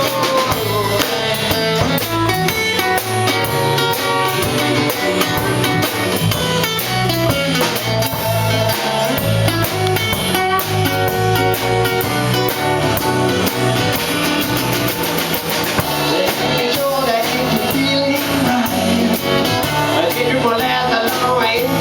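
A live band playing an instrumental passage: a guitar carries the melody over bass and a drum kit.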